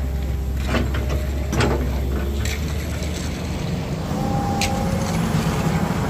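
Heavy diesel vehicle engine running with a steady low rumble, with a few sharp metallic clicks and knocks; about four seconds in, a stronger engine note comes in.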